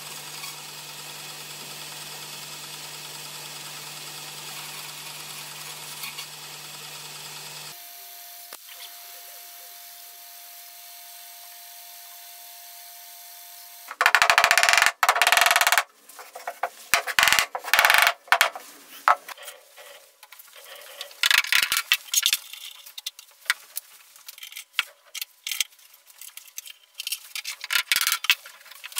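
A bandsaw runs with a steady hum as it cuts a wooden dowel, followed by a quieter steady hum. From about halfway, a mallet strikes wood in loud, irregular runs of blows, driving glued dowels into the joints of a pine frame.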